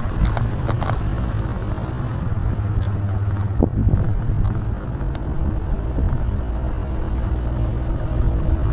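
Steady low rumble of a vehicle moving along a street, its engine and tyres, with a few scattered clicks and knocks.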